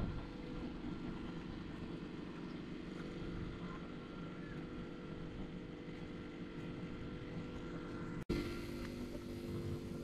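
Steady mechanical hum made of several constant low tones, cutting out for an instant about eight seconds in and then carrying on.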